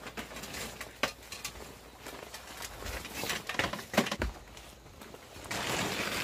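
Someone climbing an aluminium extension ladder: scattered knocks and clunks of boots and hands on the rungs, with the sharpest knock about four seconds in. Near the end comes a short burst of rustling as the climber pushes into the branches.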